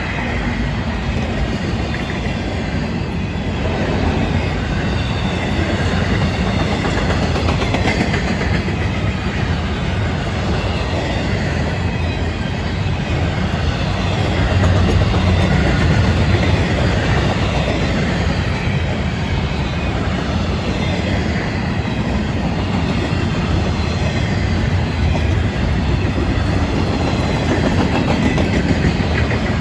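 Freight cars of a long FEC train rolling past, a steady loud rumble of steel wheels on rail with clickety-clack from the rail joints.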